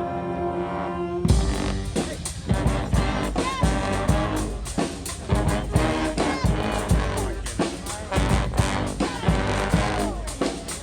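Brass band music: horns hold a sustained chord, then a little over a second in the full band comes in with drum kit, bass drum and brass playing a driving rhythmic groove.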